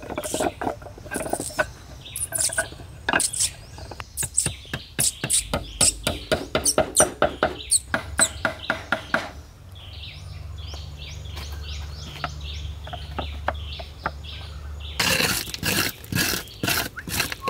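Cut wooden poles knocking and clacking against each other as they are laid side by side, a quick run of sharp knocks for about the first nine seconds. Then it goes quieter with birds chirping, and a burst of louder rough noise comes near the end.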